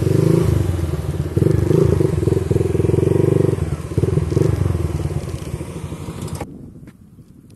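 Vehicle engine running with a fast pulsing beat, loud for about three and a half seconds and then fading away; the sound drops off abruptly near the end.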